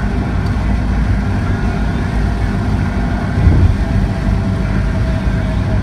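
Steady low rumble of a car driving on a waterlogged highway in the rain, heard from inside the cabin: road, tyre and engine noise.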